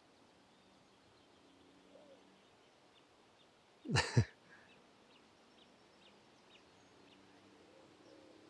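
Quiet open-air ambience with faint, scattered bird chirps. About four seconds in comes one short, sharp double burst of noise, the loudest thing heard.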